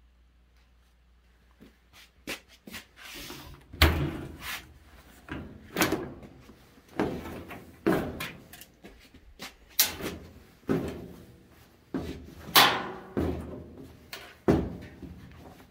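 Wet clothes being pulled from a washer and pushed into a clothes dryer's drum, making a series of thuds and knocks about once a second, with rustling of wet fabric between them.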